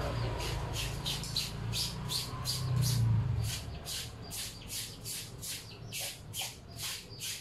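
Clothes being scrubbed by hand in a basin: short, evenly spaced swishing strokes, about three a second. A low hum underneath dies away about halfway through.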